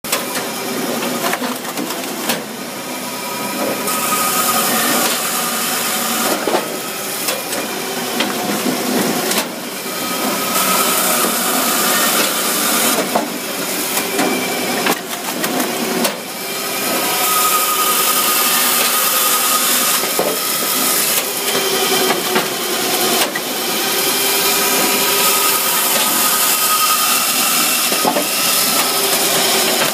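Hakki Pilke Expert 37 firewood processor running, with a steady machine hum under it. Its saw cuts through logs in repeated spells of louder hiss, and split pieces knock and clatter as they drop out of the chute.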